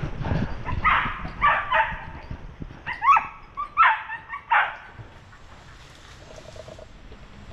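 Hunting dogs barking in a quick run of about eight barks over some four seconds, then falling off.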